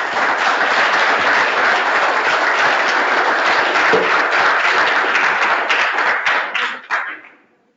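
Audience applauding: dense, steady clapping that thins to a few scattered last claps and stops near the end.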